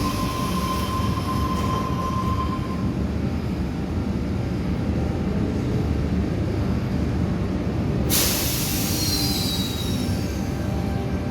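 Sydney Trains electric suburban train moving at a station platform, a steady low rumble. A thin high wheel squeal sounds in the first few seconds. About eight seconds in, a sudden loud hiss starts, followed by further high-pitched squeals.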